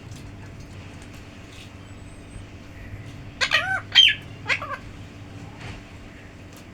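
Pet parrot calling: a quick run of four or five loud calls that bend up and down in pitch, about three and a half seconds in, each cry somewhat meow-like.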